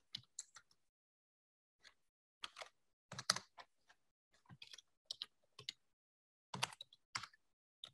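Typing on a computer keyboard: irregular clusters of key clicks with short pauses between them.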